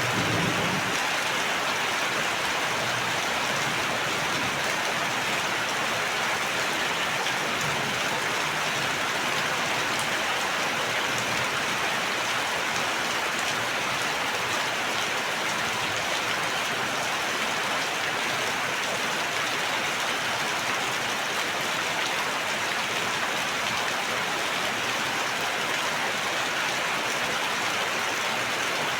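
Steady rain falling and pattering on a surface, an even hiss with no pauses.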